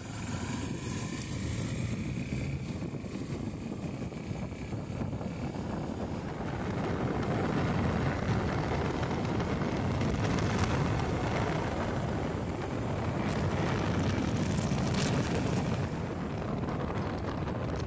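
Honda XR250 Tornado's single-cylinder four-stroke engine running at road speed under heavy wind rush on the microphone. The engine note shows early on, then the wind rush grows louder from about seven seconds in and covers it.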